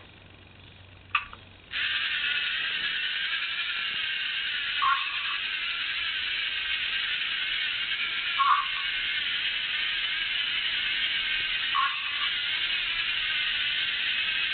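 LEGO Mindstorms NXT robot's servo motors and gears driving its treads with a steady whir, which starts a couple of seconds in just after a single click. Every three to four seconds a brief tinny sound comes from the brick's speaker as it announces the new surface colour.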